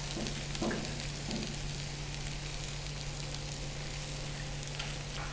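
Beef slices sizzling steadily as they shallow-fry in ghee in a hot pan. A few light knocks of metal tongs turning the pieces come in the first second or so and again near the end.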